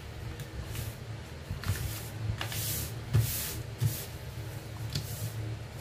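A sheet of paper rustling and sliding on a wooden tabletop as it is folded and the crease pressed flat by hand, in several short swishes.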